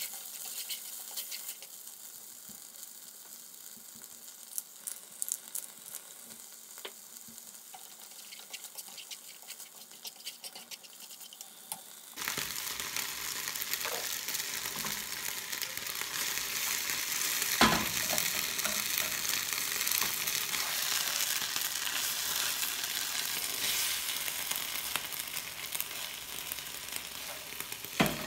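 Tomato and vegetable sauce sizzling in a frying pan as it is stirred with wooden chopsticks, with light clicks of the chopsticks against the pan. About twelve seconds in, the sizzling turns suddenly much louder and stays that way while spaghetti is tossed through the sauce, with a couple of sharp knocks on the pan.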